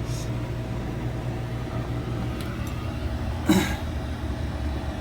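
Air-conditioning compressor running with a steady low hum, back on after a trip on its internal overload that the technician blames most likely on debris in the system. A brief louder noise about three and a half seconds in.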